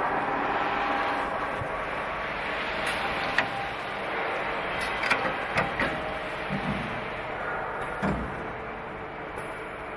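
Workshop machinery running with a steady noise, broken by a few sharp knocks at uneven intervals, the loudest about a third of the way in.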